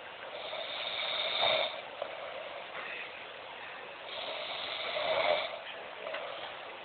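A man snoring in his sleep. Two long snores about three and a half seconds apart each swell louder and then stop, with quieter breathing between them.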